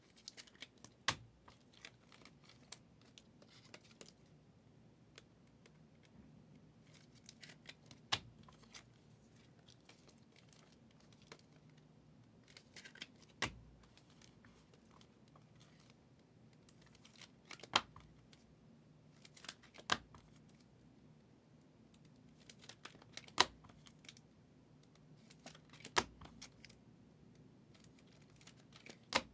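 Trading card packs and cards being handled: scattered sharp clicks, snips and crinkles of wrappers every few seconds, over a faint steady low hum.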